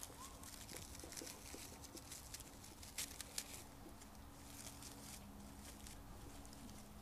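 Faint crackling and rustling of dry stems and grapevine as dried lotus pods are pushed into a grapevine wreath base, with a couple of sharper clicks about three seconds in.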